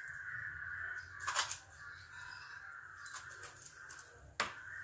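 Steel spoon clinking against glass tumblers as toppings are spooned onto glasses of lassi: one clink about a second in and a sharper tap near the end. A steady, high-pitched sound carries on underneath.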